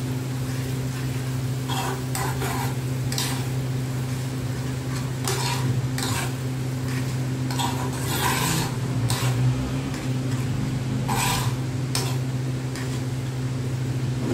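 Metal spoon stirring and scraping a thick tomato sauce around a frying pan in irregular strokes, over a steady low hum.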